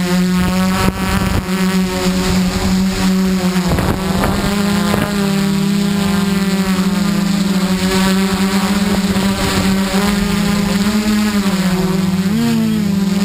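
Xaircraft X650 quadcopter's motors and propellers whining steadily, close up from the camera on the craft itself. The pitch dips and wavers twice near the end as the throttle changes, and a few wind knocks hit the microphone in the first few seconds.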